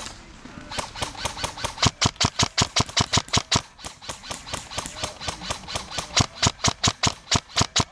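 Airsoft gun firing a steady string of shots, about five a second, sharp cracks that grow louder and more regular after about a second and carry on to the end.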